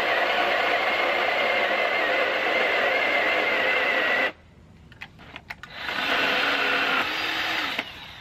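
Cordless JawSaw electric chainsaw running steadily while cutting through wood, with a high steady whine over the motor noise. It stops suddenly about four seconds in, a few clicks and knocks follow, then it runs again for about two seconds near the end.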